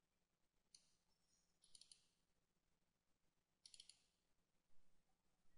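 Faint computer mouse clicks, some in quick pairs like double-clicks opening folders, over near silence.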